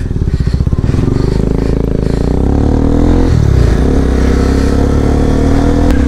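Motorcycle engine accelerating from on board, its note rising steadily; about three seconds in the revs drop for an upshift and then climb again.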